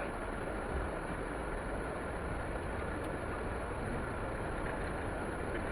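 Steady rumble and hiss of a vehicle, heard from inside its cabin.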